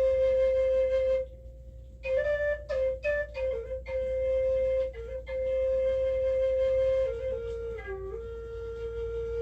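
A flute playing long held notes near one pitch. A brief breath pause comes about a second in, then a run of short ornamented notes, and near the end the melody steps down to a slightly lower, softer held note.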